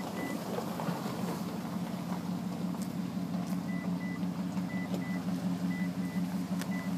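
Mitsubishi pickup's V8 engine idling with a steady low hum. Over the second half the cab's warning chime beeps in short high pairs.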